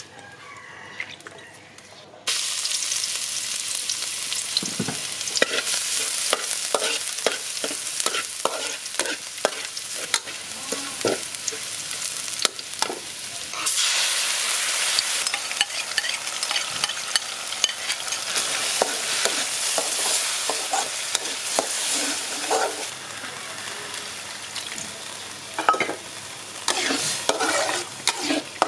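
Chopped garlic sizzling in hot oil in a steel wok, stirred with a metal spatula that scrapes and clicks against the pan. The sizzle starts suddenly a couple of seconds in. About 14 s in, red tomato sauce is poured into the pan and the sizzle gets louder.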